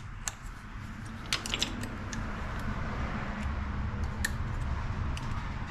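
Light metallic clicks and taps of a hex key set and small tools being handled at a lathe's tool post: a few scattered clicks, with a quick cluster a little over a second in, over a steady low hum.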